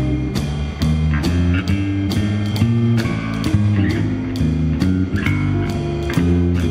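Live jazz band playing: an electric bass carries a moving line of low plucked notes while the drums keep a steady beat on the cymbals.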